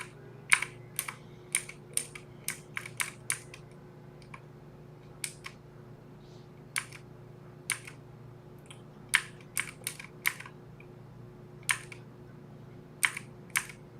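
Typing on a Filco Majestouch mechanical keyboard: irregular keystroke clicks, some single and some in quick runs, with short pauses between.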